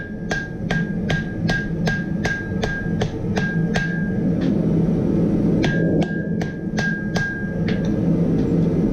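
Hammer blows on a hot billet of wrought iron and 5160 spring steel over an anvil, about two and a half strikes a second, each with a bright ring. This is forge-welding the san mai layers at welding heat. The blows pause for about a second partway through, then resume and stop near the end, over a steady low rumble.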